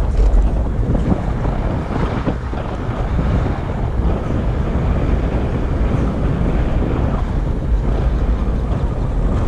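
Wind buffeting the microphone while riding an electric all-terrain skateboard: a loud, steady rough rumble without a break.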